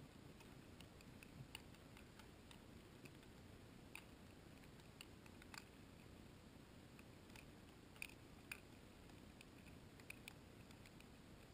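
Near silence: faint hiss with scattered soft, irregular clicks, two slightly sharper ones about eight seconds in.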